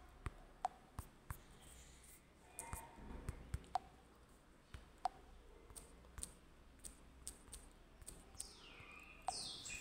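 Faint taps and clicks, one at a time at uneven intervals, about a dozen in all: fingers tapping a smartphone's touchscreen keyboard while typing a word.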